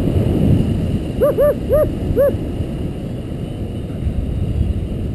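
Wind rushing steadily over the microphone in paraglider flight. About a second in come four short yelping calls, each rising and then falling in pitch, in quick succession.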